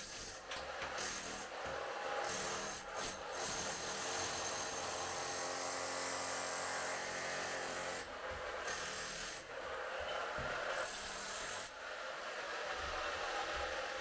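A power tool runs almost without a break, with a grinding, rubbing sound and a high whine, and stops briefly a few times.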